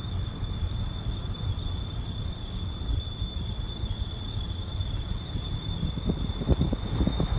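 Vauxhall Astra J 1.4T making a steady high-pitched squeal over a low rumble, with a few low knocks near the end. It is an unidentified noise that the owner cannot place, suspected to come from the wheel or brake area.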